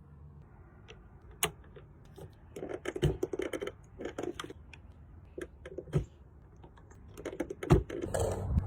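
Irregular metallic clicks and knocks from a Colt Dragoon percussion revolver being handled, with short runs of rapid clicking and a few louder knocks.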